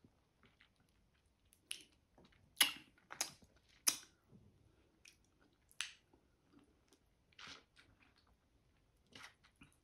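Eating orange wedges: about seven short, irregularly spaced biting and sucking sounds, with quiet chewing between.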